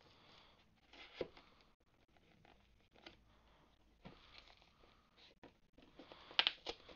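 Faint scraping and tapping of hands prying at a cardboard box whose lid is glued shut, with a few scattered clicks. Near the end a pair of scissors is handled against the box, giving the loudest cluster of clicks.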